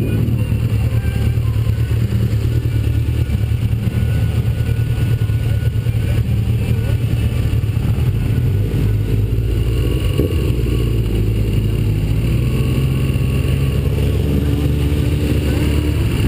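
Engine of a BMW RT touring motorcycle running at low town speed, a steady low hum, heard from a camera on its own fairing, with other motorcycles close by.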